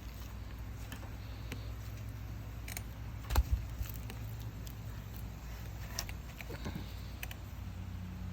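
Wood fire crackling in a fire pit, with scattered sharp pops over a steady low rumble and a heavier low thump about three and a half seconds in.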